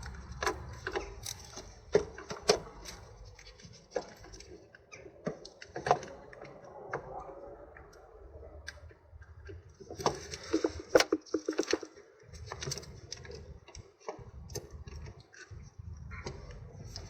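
Scattered metal clicks and knocks as a Toyota MMT gear-shift actuator, without its motors and sensors, is worked by hand into place on the gearbox, with a quick run of clicks about two-thirds of the way through.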